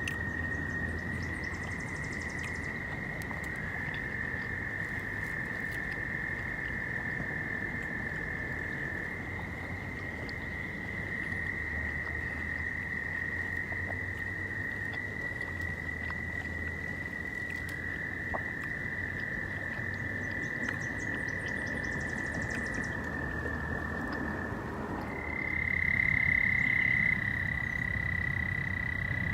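Frogs calling in long, steady high-pitched notes, several at slightly different pitches overlapping, one starting and another stopping every few seconds; the calling gets louder about 25 seconds in.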